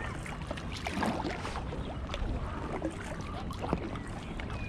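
Kayak paddling: a paddle dipping and water splashing and dripping in many small irregular ticks around an inflatable kayak, over a steady low rumble.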